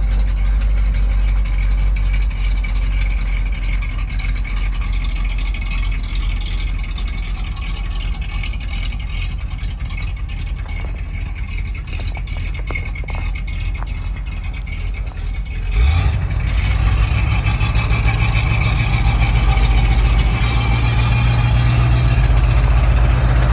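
1984 GMC C6500 truck engine idling steadily, noticeably louder from about two-thirds of the way in.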